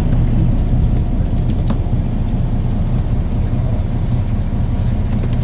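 Fishing boat's engine running steadily, a low drone.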